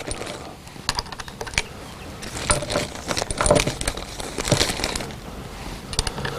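Scattered small clicks and light metallic clinks from handling gear, with no shot fired.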